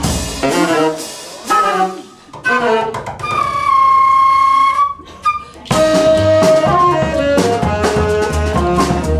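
Live jazz band in a stop-time break: the bass and drums cut out, leaving a lone wind instrument playing a quick run of notes and then one long held high note. The full band, with bass and drums, comes back in after about five and a half seconds.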